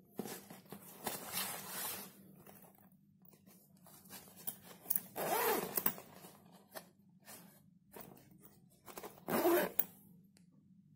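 Zip on a clear plastic travel pouch being run open and shut in three short bursts, the loudest about five seconds in.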